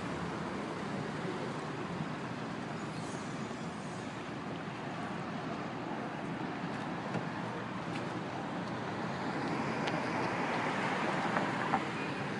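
Steady outdoor traffic noise from passing cars, swelling a little about three-quarters of the way through.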